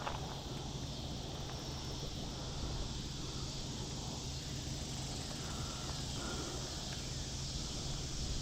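Steady outdoor pondside ambience: a continuous high hiss-like drone of insects over a low rumble of wind on the microphone.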